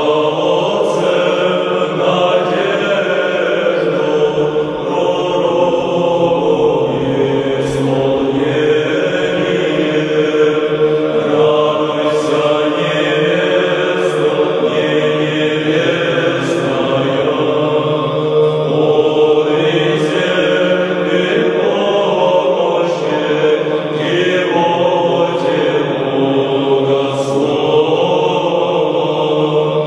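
Background music: slow vocal chant sung over a steady held note.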